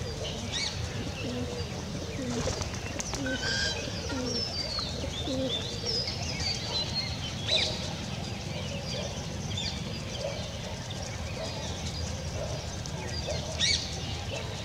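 Birds calling: many scattered high chirps together with soft, low, falling coo-like calls, over a steady low background rumble. There are a few brief louder rustling bursts, the loudest near the end.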